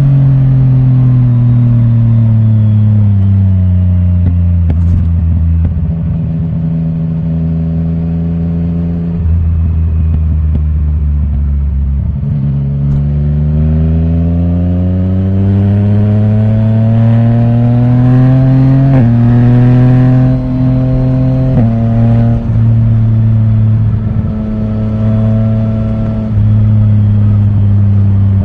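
Yamaha Tracer 900 GT's inline-three engine breathing through an Akrapovic titanium full exhaust with the dB killer removed, heard while riding. The engine note falls as the bike slows, holds steady, then climbs in a long pull. Two abrupt changes in pitch about two-thirds through mark gear changes, and the note then settles into a steady cruise.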